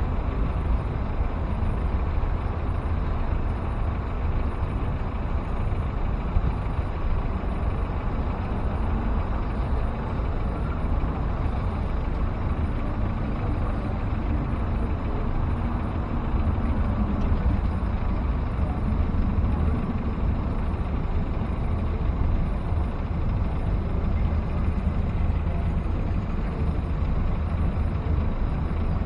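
Steady rush-hour street noise: a low rumble of road traffic with wind on the microphone, and no single sound standing out.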